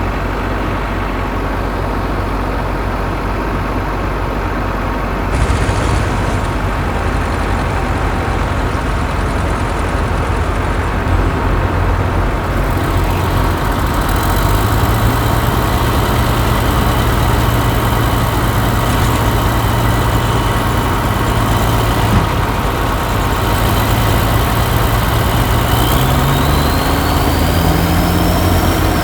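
Heavy diesel engines of the stuck truck and the earthmoving machines running steadily. The sound changes abruptly about five seconds in, and an engine revs up near the end.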